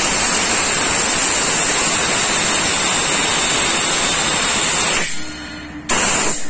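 Compressed air hissing loudly through a pneumatic venturi vacuum brake bleeder while its trigger is held, pulling a vacuum that draws fluid out of the brake system. The hiss cuts off about five seconds in and comes back briefly near the end.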